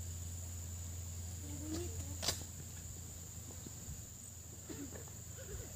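Night-time outdoor ambience: a steady high-pitched trill of insects such as crickets over a low steady hum, with one sharp click about two seconds in.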